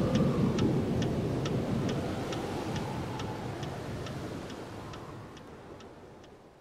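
Outro of a German dance track fading out: evenly spaced sharp ticks, a little over two a second, over a low rushing wash, the whole thing dying away steadily toward silence.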